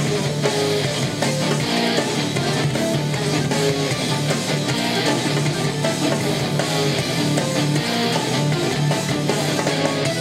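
Guitar-led rock music played back through Technics SB-F1 mini monitor speakers, with a steady bass line.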